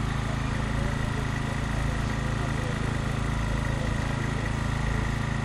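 Small petrol engine running steadily at a constant speed, the power unit driving the hydraulic rescue tools, with a thin steady high whine over the low drone.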